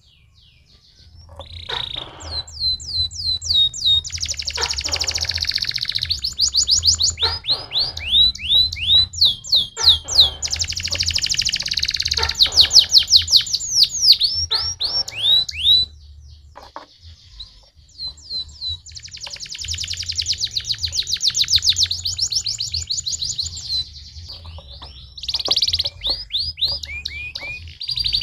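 Domestic canary singing: long song phrases of fast repeated whistled notes and rapid trills, with a short pause in the middle.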